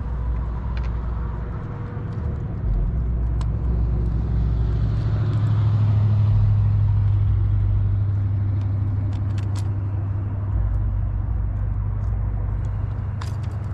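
A motor running with a steady low hum that swells in the middle and eases off again. Light, sharp clicks come in twice, in the second half and near the end.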